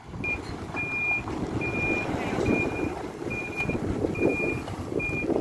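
Reversing alarm on a Hidromek 102S backhoe loader beeping in even, high-pitched pulses about once a second over the diesel engine's running noise. The machine is backing up.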